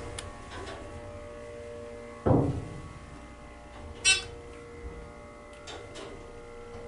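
ThyssenDover hydraulic elevator in motion: a steady hum of several fixed tones inside the car. There is a single thud about two seconds in and a brief sharp high sound about four seconds in.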